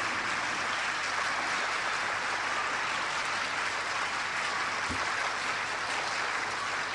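Audience in a large hall applauding, steady clapping throughout.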